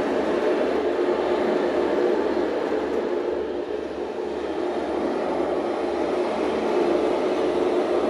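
Steady, dense roar of stormy surf and wind, a recorded sea-storm soundscape playing back in the room.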